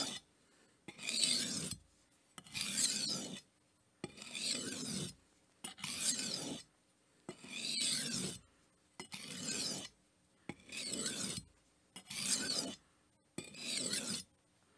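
Kitchen knife blade drawn across the fine side of an oiled sharpening stone: nine even scraping strokes about one and a half seconds apart, each just under a second long, the passes alternating between the two sides of the edge.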